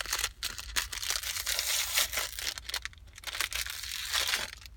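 Plastic wrapping on an LOL Surprise ball crinkling and tearing as it is peeled open by hand, crackling on and off with a short lull about three seconds in.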